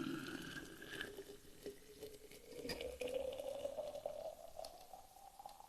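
Water being poured into a cup, the pitch of the filling rising steadily as the cup fills up.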